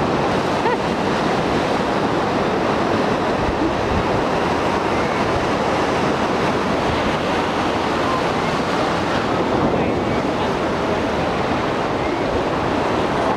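Steady rushing wash of ocean surf on a beach, with wind on the microphone.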